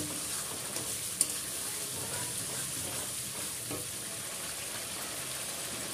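Onion-and-spice masala with tomato sauce frying in oil in a steel kadai, sizzling steadily as a spatula stirs and scrapes through it. There is one sharp tap about a second in.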